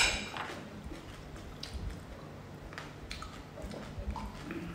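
Close-up eating sounds: chewing, with small scattered clicks from a fork and dishes. A sharp click right at the start is the loudest sound.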